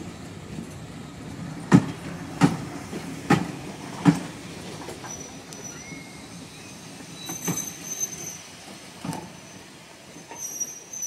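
Steam-hauled passenger coaches rolling past on jointed track: the wheels strike the rail joints in four sharp knocks in the first half, then the running goes quieter with faint, thin high-pitched wheel squeals near the end.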